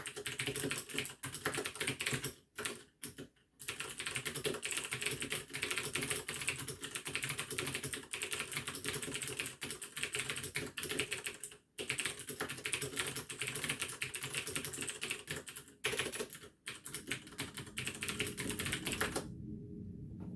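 Fast touch-typing on a Das Keyboard mechanical keyboard with clicky Cherry MX Blue switches: a dense run of keystroke clicks with a few short pauses, stopping about a second before the end.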